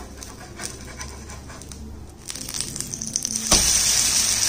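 A metal spatula scrapes and taps under a dosa on an iron tawa. About three and a half seconds in, the dosa is flipped onto its ghee-coated side and sizzles loudly.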